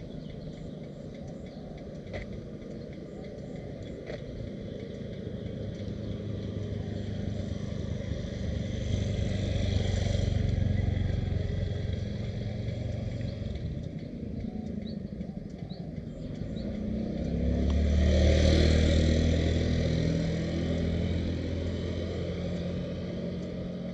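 Motor vehicles passing close by over a steady background of traffic noise: one swells and fades about ten seconds in, and a louder one with a low engine hum passes about eighteen seconds in, its pitch dropping as it goes by.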